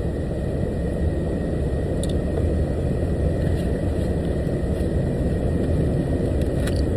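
Steady low rumble of an idling truck engine, with a faint steady high tone and a couple of small clicks over it.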